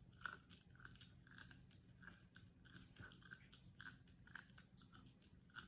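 Faint crunchy chewing of popcorn, soft crunches roughly twice a second, over a faint low hum.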